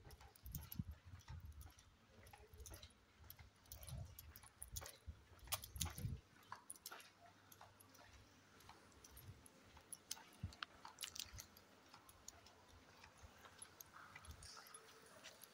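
Near silence broken by faint, irregular clicks and low thumps, with the thumps only in the first six seconds: footsteps on a hard floor and handling noise from a phone carried while walking.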